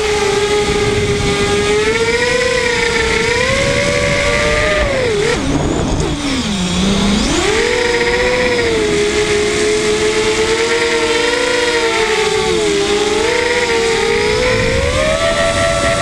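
Quadcopter's brushless motors and propellers whining, the pitch rising and falling with the throttle. About six seconds in, the whine drops steeply to a low hum, then climbs back, and it steps up again near the end.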